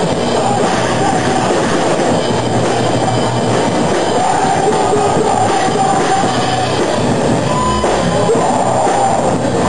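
Live rock band playing loudly: a dense, steady wall of noisy, distorted sound with no clear beat standing out.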